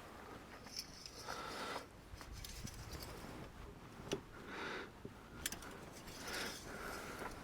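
Faint rubbing and scraping with a few sharp clicks, about four and five and a half seconds in: the engine oil dipstick being pulled, wiped and handled.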